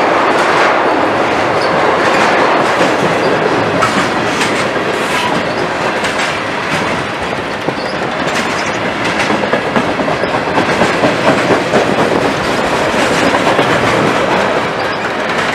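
Norfolk Southern freight train's flatcars and boxcars rolling past: a steady rumble of steel wheels on rail with clickety-clack over the rail joints. The clicks come more densely a little past the middle.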